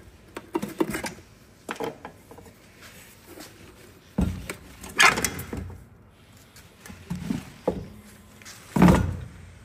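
About half a dozen irregular thunks and rustles as a cut-open air suspension strut (shock absorber with its rubber air spring) is pressed and shifted by hand on a paper-covered bench. The loudest knocks come about five and nine seconds in.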